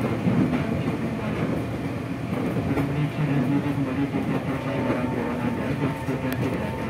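Running sound inside a Tokyo Metro 05 series electric train car fitted with four-quadrant chopper control: a steady electrical hum from the traction equipment over the rumble of the wheels on the rails.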